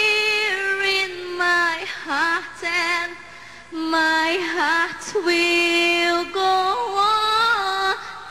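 A woman singing solo into a microphone with no accompaniment heard: long held notes with vibrato, in several phrases with short breaks between them.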